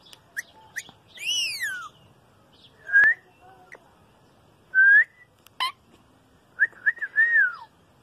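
A green parakeet whistling in short bursts. There is an arched call that rises and falls about a second in, short rising whistles a little later, a sharp click about halfway through, and a quick run of notes ending in a falling slide near the end.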